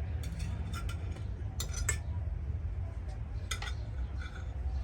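Cutlery clinking against plates during a meal: a handful of short, light clinks, over a steady low rumble.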